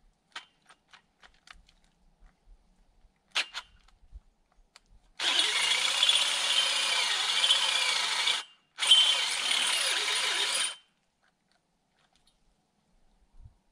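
Power drill running in two steady bursts, about three seconds and then about two seconds, after a few light clicks and one short whir.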